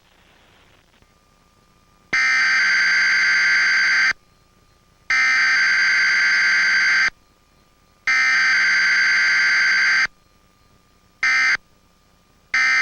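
Emergency Alert System digital header tones: three harsh, screeching data bursts of about two seconds each, a second apart, which encode the alert. They are followed near the end by two short end-of-message bursts.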